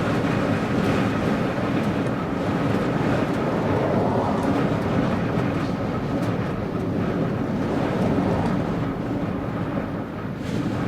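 Strong wind buffeting the microphone: a steady, dense rushing rumble that swells and eases slightly.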